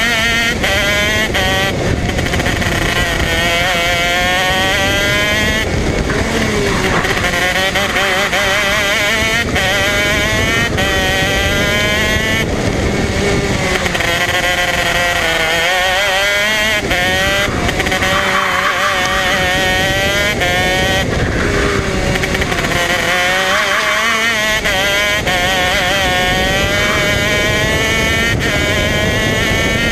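Modena Engines 125 cc two-stroke KZ shifter kart engine at racing speed, its pitch climbing steeply as it accelerates, dropping sharply every few seconds at gear changes and lifts into corners, then climbing again.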